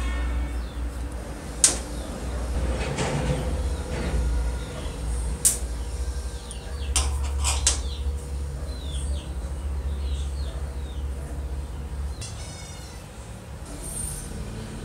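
Small metal parts of an old Primus kerosene stove handled and worked with hand tools on a workbench: a few sharp metallic clicks and taps, and a short quick run of clicks near the end, over a steady low hum.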